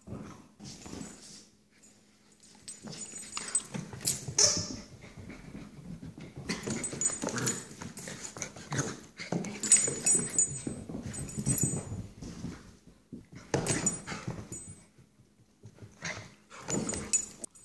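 An adult goldendoodle and a puppy play-fighting, with dog play noises and scuffling in irregular bursts broken by short pauses.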